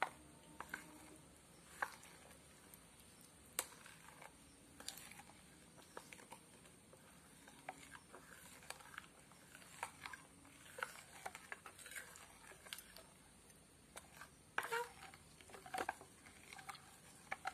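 Metal spoon stirring thin rice-flour batter in a bowl: faint, irregular clinks and scrapes of the spoon against the bowl, with a brief busier cluster near the end.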